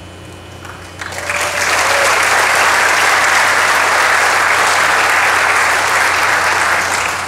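Audience applauding, swelling about a second in, holding steady, then starting to fade near the end.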